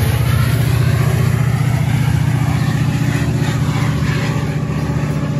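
Metra diesel passenger locomotive at the rear of its bilevel commuter train passing close by: a steady, pulsing low engine drone over the rush of the train, slowly fading as it moves away.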